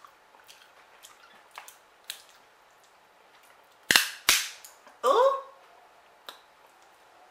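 Snow crab leg shells snapped by hand: two sharp cracks about four seconds in, half a second apart, with small clicks of shell being picked before and after.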